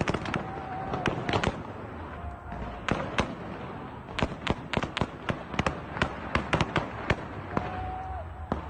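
Heavy gunfire in a city street: rapid shots in irregular bursts, thickest about halfway through.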